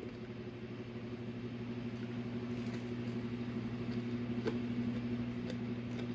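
Steady low electrical hum holding one pitch with its overtones, with a few faint clicks in the middle.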